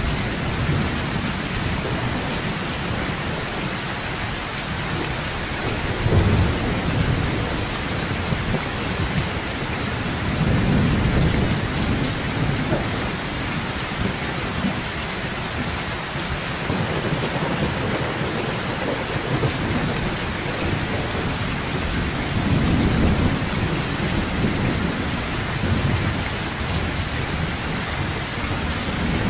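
Heavy rain falling steadily on a metal roof, with low rolls of thunder that swell up and fade three times: a few seconds in, near the middle, and again later.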